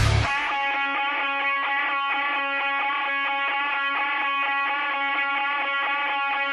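Heavy rock background music that drops, just after the start, to a lone electric guitar picking a repeated ringing figure with no drums or bass.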